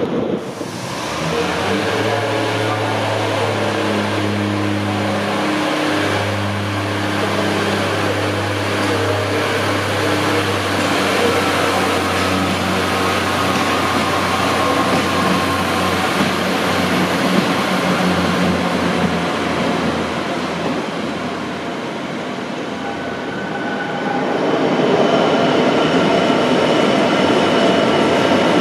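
Diesel engine of a Class 142 Pacer railcar running with a steady low drone that shifts slightly in pitch. About four seconds from the end, a louder, even rush of train noise takes over.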